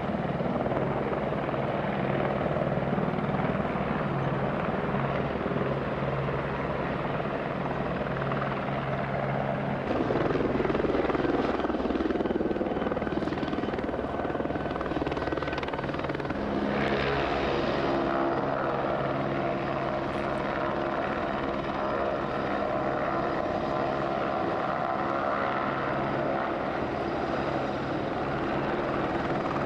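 Eurocopter AS350-type light helicopter flying low past: steady rotor and turbine sound, a little louder about ten seconds in.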